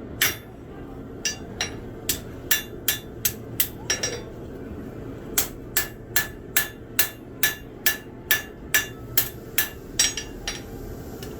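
Hand hammer striking hot steel on an anvil while a blade is forged, a steady run of sharp metallic blows about two to three a second. There is a short pause of about a second around four seconds in.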